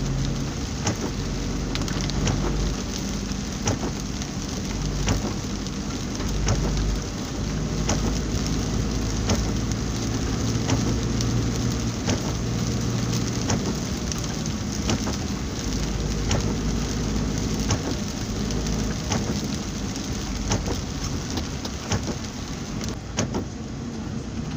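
Heavy rain falling on a moving car's roof and windshield, heard from inside the cabin, with many sharp taps of single drops over a steady hiss. A low hum of the engine and tyres on the wet road runs underneath.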